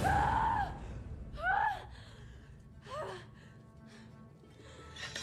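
A young woman's anguished cry, falling away at the start, then two short gasping cries about a second and a half apart, over a low film score.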